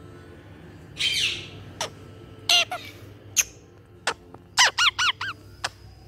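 Indian ringneck parakeet calling: a harsh squawk about a second in, then a run of short, sharp chirps and clicks.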